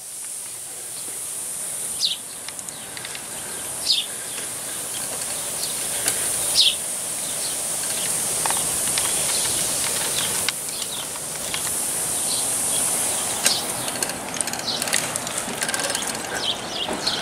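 Outdoor ambience: a steady high-pitched hiss, with short bird chirps every couple of seconds.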